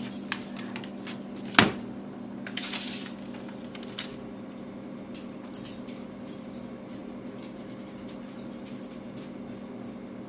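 A few knocks and clicks of objects being handled, the loudest about one and a half seconds in, over a steady low hum.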